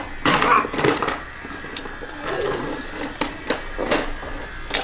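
Spit-roasted whole chickens being torn apart by hand: wet tearing of meat and crackling of the roasted skin, in irregular bursts.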